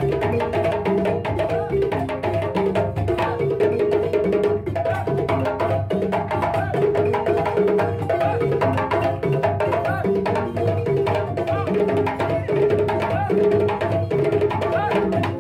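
West African hand-drum ensemble, with djembes and dundun bass drums, playing a dense, steady rhythm without a break.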